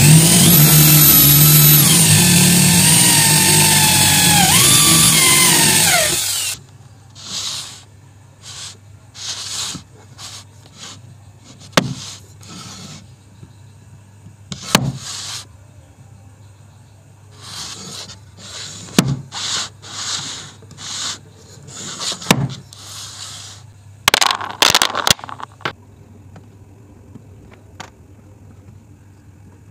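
Electric drill boring into a hardwood block, its motor pitch sagging and rising as it loads, stopping suddenly about six seconds in. Then quieter handling of wood: pieces and dowels rubbed and shifted, with a few sharp knocks as they are set down.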